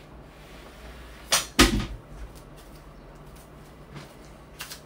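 Two sharp knocks a quarter-second apart about a second and a half in, the second a heavier thud, then a lighter click near the end: kitchen things being put away and fetched.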